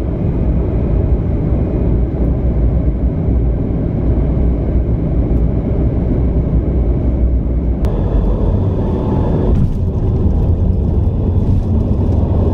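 Jet airliner cabin noise from a window seat during the approach and landing: a loud, steady rumble of engines and airflow. About eight seconds in, a faint high whine joins the rumble.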